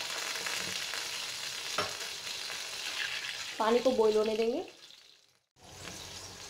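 Water poured from a bowl into a pan of hot oil with cumin seeds and curry leaves, sizzling and spluttering on contact. About five seconds in the sound drops out briefly and comes back as a softer, steady hiss.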